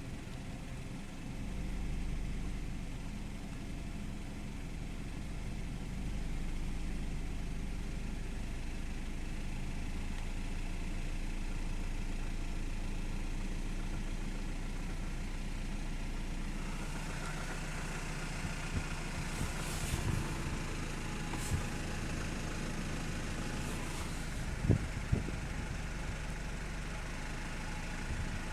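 BMW E90 N46B20 2.0-litre four-cylinder petrol engine running at low revs. Its note changes about two-thirds of the way through, and several short, sharp knocks follow. This is the low-rpm knock the owner complains of, which he describes as detonation and knocking at low revs.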